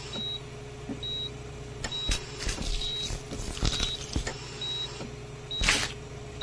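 Operating-room heart monitor beeping about once a second over a steady low machine hum, with several short wet squelching sounds from the incision, the loudest a little before the end.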